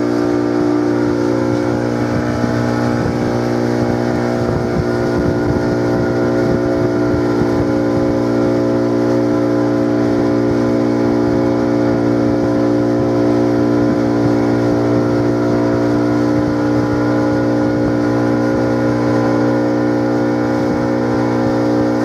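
A boat's motor running steadily at one even pitch.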